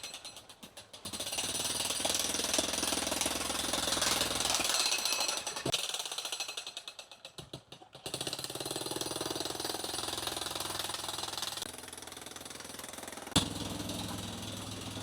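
Jackhammer (concrete breaker) hammering in two bursts of rapid blows, each about four seconds long, with a pause between them. A single sharp knock comes near the end.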